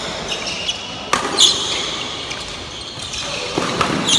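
Badminton rally: sharp racket hits on the shuttlecock, the clearest about a second in, and shoes squeaking on the court floor, twice.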